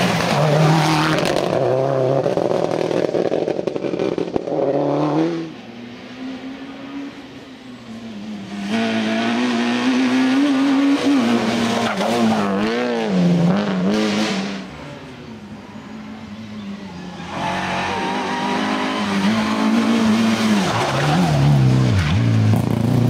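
Rally cars racing past one after another on a tarmac stage, the first a Subaru Impreza WRX STI: each engine revs hard, drops back on braking and gear changes, and fades as the car goes by. There are three loud passes with quieter spells between them.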